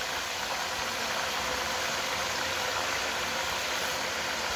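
Steady sizzling hiss from a hot, steaming cooking pot as liquid is ladled into it.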